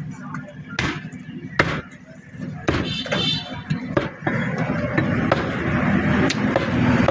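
Butcher's cleaver chopping through ox meat and bone, about six sharp strikes a second or so apart, over busy market chatter.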